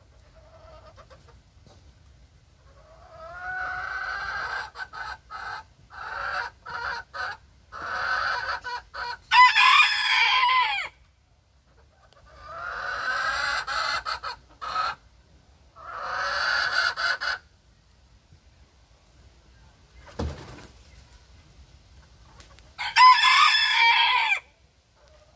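Chickens calling: a string of about seven long, drawn-out calls of one to two seconds each, some broken up into clucks, the loudest near the middle and near the end. A single thump about twenty seconds in.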